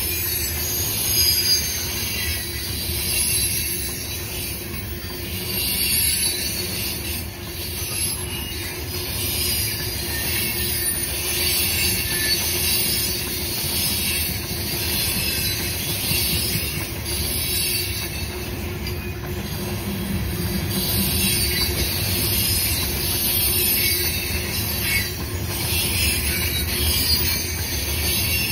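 Freight train of coal hopper cars rolling past: a steady rumble of wheels on rail with high-pitched, wavering wheel squeal throughout.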